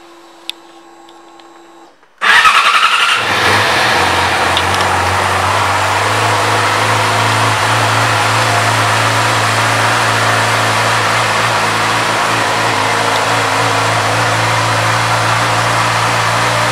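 2020 Yamaha YZF-R6's 599 cc inline-four starting about two seconds in, flaring up briefly, then settling into a steady idle. A faint hum and a click come before it.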